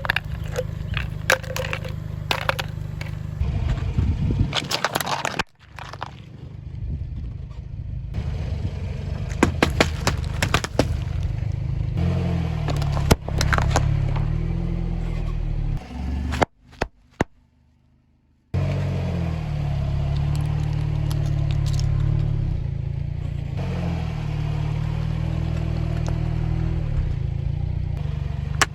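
A car's engine running slowly as the car creeps forward, with crunching, cracking and scraping as its tyres roll over and crush objects, and one sharp bang about halfway through. The sound breaks off briefly twice.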